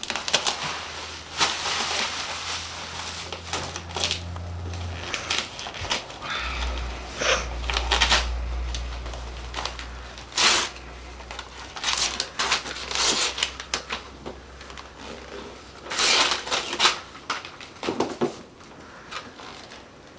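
Wrapping paper being torn and crumpled off a gift box by a small child's hands: a run of short, irregular rips and crinkles.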